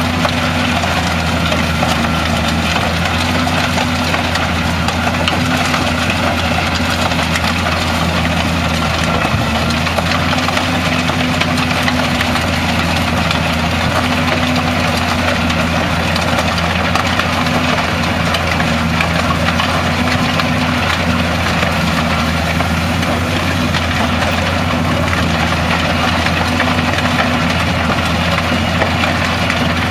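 Fendt 936 tractor's diesel engine running steadily under load, driving a PTH stone crusher's rotor as it works through stony ground. The result is a constant, even mix of low engine hum and grinding machine noise.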